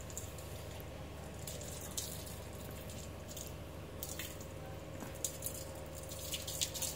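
Water from a garden hose spattering and dripping off a wet golden retriever's coat onto a tiled floor, with scattered small splashes that come more often near the end, over a steady low hum.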